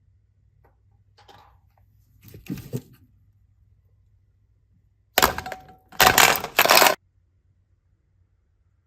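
Crackling, crinkling handling sounds: a short crackle a couple of seconds in, then two loud crackling bursts of about a second each past the middle.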